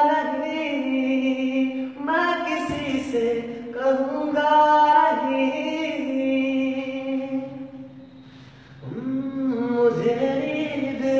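A man singing a Hindi film song unaccompanied, holding long, wavering notes, with a short break for breath about eight seconds in.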